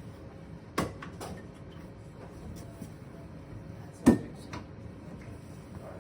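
Sauna wall panels knocking and bumping as they are handled and set in place: two knocks about a second in and a louder one about four seconds in.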